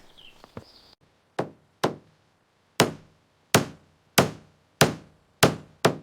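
A tool striking wood hard, eight sharp blows at a steady pace of about one and a half a second, starting about a second and a half in, with a few faint taps before them.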